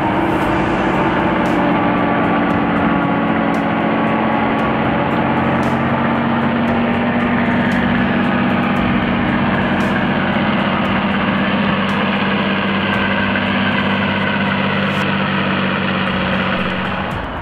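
Heavy truck engine running steadily under load as the truck crawls through deep mud, its note holding at an even pitch.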